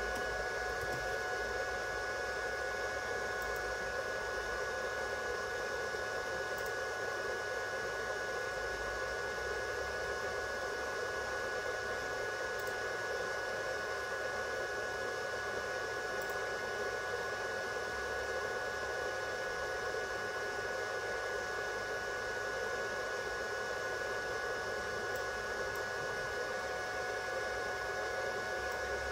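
Steady machine whirring with a constant hiss and a few fixed high whining tones that never change.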